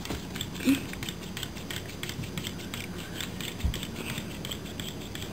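Rapid, irregular light clicking and ticking as a small solar-powered wire robot is handled and set down, with a sharper knock about a second in and a dull thump a little past halfway.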